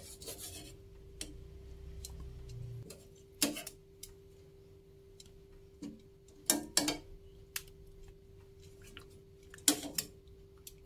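Metal tongs scraping and clicking against a saucepan while lifting boiled chicken pieces out of the water, with a few sharp clinks spread through. A faint steady hum runs underneath.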